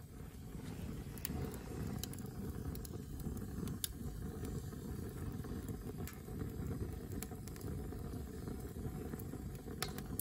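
Wood fire burning in a steel smoker firebox made from an old propane tank: a steady low rumble of the flames with scattered sharp crackles and pops from the burning logs.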